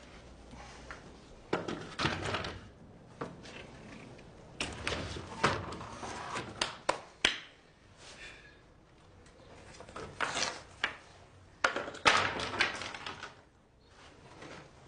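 Wooden boards knocking and clattering as they are handled and moved about, in several irregular bursts of knocks with quieter gaps between.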